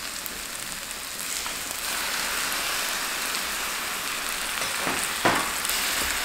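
Black bean sauce with vegetables sizzling in a frying pan as water is added, the sizzle growing louder about two seconds in. A short knock comes about five seconds in.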